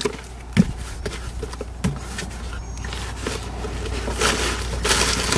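Cardboard box being opened by hand: flaps and packing material rustling and scraping, with a few light knocks in the first two seconds and denser rustling near the end, over a steady low background rumble.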